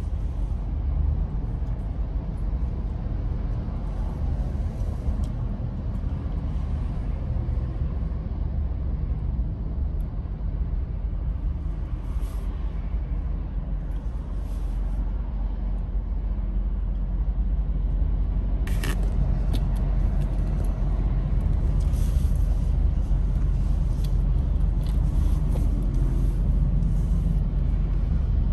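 Steady low road and engine rumble inside the cabin of a moving car, with a single brief click about 19 seconds in.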